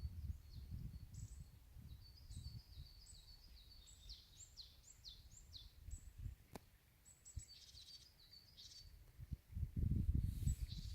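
Small songbirds singing, with rapid repeated high chirps and short trills throughout. Underneath is a low rumble on the microphone, loudest near the end.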